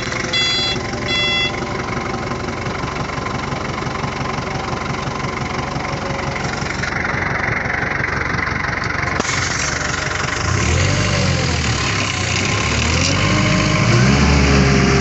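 Heli forklift engine running steadily, with its warning beeper sounding about twice a second for the first second and a half. From about ten seconds in, the engine revs rise and fall twice and grow louder, as they do when the hydraulics work the mast or clamp.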